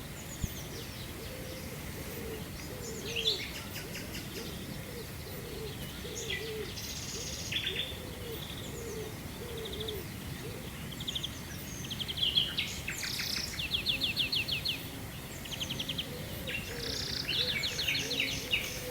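Several songbirds singing and calling over one another with fast trills and chirps, over a dove's low, repeated cooing through the first half.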